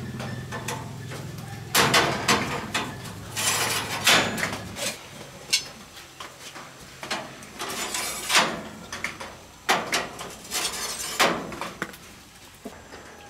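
A series of short scraping strokes at irregular intervals, each under half a second, with a few light knocks and clatters between them.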